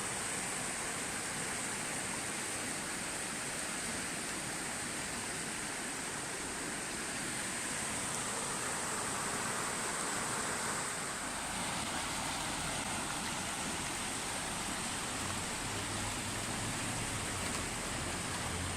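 Mountain river water rushing steadily over rocks, with a steady high-pitched hiss above it.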